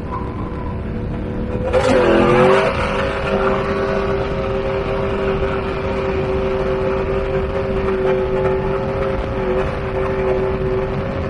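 Drift truck's Ford 5.0 fuel-injected V8 running at high, steady revs over a rush of wind noise. About two seconds in there is a brief loud rush and the engine's pitch dips and comes back.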